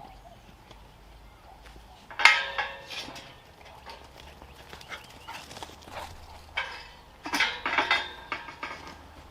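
Animal calls in two bursts of several short pitched cries, one about two seconds in and a longer one near the end, over a faint low background hum.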